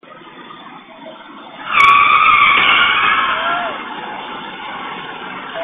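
Vehicle tyres screeching in a hard skid, starting suddenly about two seconds in, holding a high squeal for about two seconds, then trailing off.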